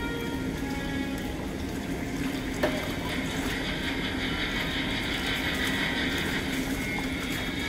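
Steady low hum of an indoor pool hall with faint music underneath that grows a little stronger after a few seconds, and a single short click about two and a half seconds in.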